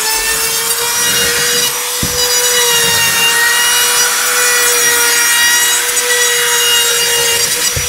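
Compact trim router running at full speed, cutting a round-over along the edge of a plywood panel: a steady high whine over the hiss of the cut.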